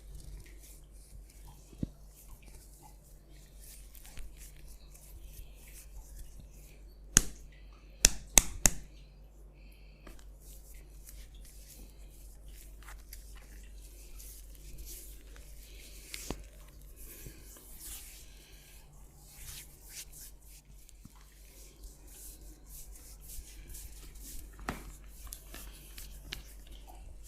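Hands massaging skin with close rubbing and pulling strokes, and a quick run of four sharp snaps about seven to nine seconds in, with a few single snaps elsewhere.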